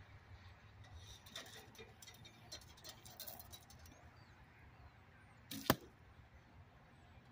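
A single arrow arrives downrange, about five and a half seconds in: a brief rush and then one sharp thwack of impact. Before it, faint scattered light ticks over a quiet outdoor background.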